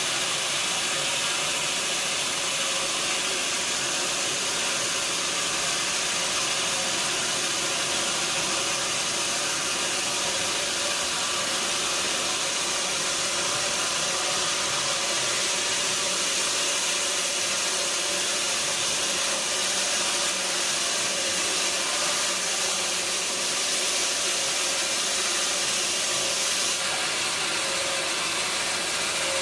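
Sawmill machinery running steadily: an even, hissing mechanical noise with a faint steady hum under it.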